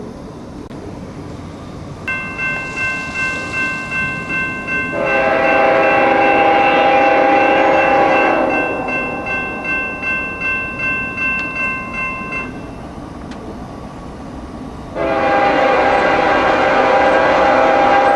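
Kansas City Southern locomotive horn sounding two long blasts, one about five seconds in and another near the end. A warning bell rings steadily about twice a second through the first one.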